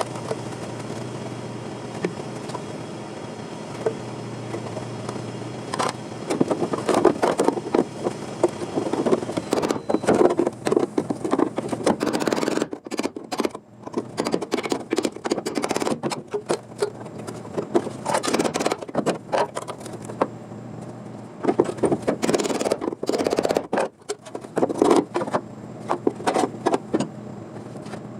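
Irregular scraping and knocking of hand-tool work on car body metal, starting about six seconds in, after a few seconds of steady hum.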